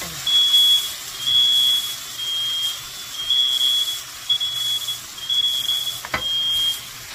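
Smoke alarm beeping, a shrill high tone repeating about once a second and stopping near the end, with a single sharp knock about six seconds in.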